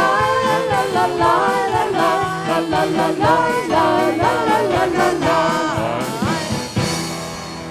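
Worship band with voices singing a wordless "la la la" refrain over a steady drum beat. The song ends on a final strike about seven seconds in, leaving a held chord ringing.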